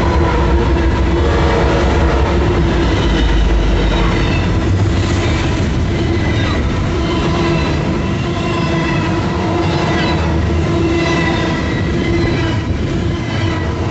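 BNSF freight train passing close by: the deep rumble of a trailing diesel locomotive fades over the first few seconds, then double-stack container cars roll past with steady wheel-on-rail clatter and a steady tone running through it.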